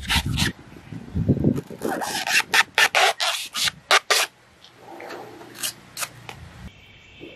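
Machete cutting and scraping into a fibrous coconut husk: a quick run of rasping strokes, with strips of husk pulled and torn away, then a few sparser strokes.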